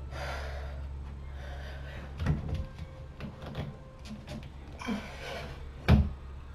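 A doorway pull-up bar clicking and knocking against the door frame as someone grips it and hangs from it, with heavy breaths. About six seconds in there is a loud knock as he comes back down to his feet.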